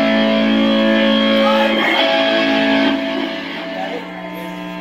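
Guitar chords ringing out with no drums, moving to a new chord about two seconds in and dying down after about three seconds.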